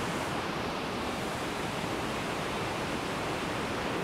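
Elk River Falls, running high and muddy after days of rain, with a steady, unbroken rush of water pouring over the rock ledge.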